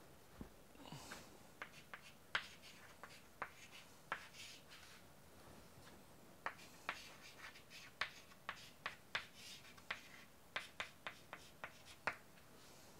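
Chalk writing on a chalkboard: faint, irregular taps and clicks as the chalk strikes the board, with a few short scratchy strokes.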